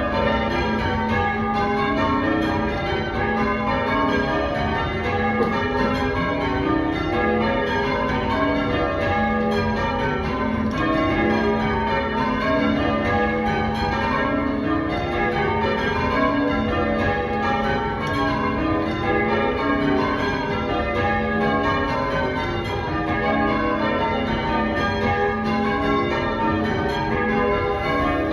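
A ring of church tower bells being change-rung: the bells strike one after another at an even pace, in stepping runs of notes whose order shifts from row to row.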